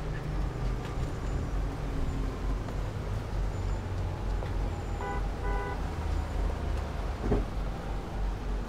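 Steady low engine and road rumble inside a moving city bus. About five seconds in come two short beeps, and near the end a brief knock.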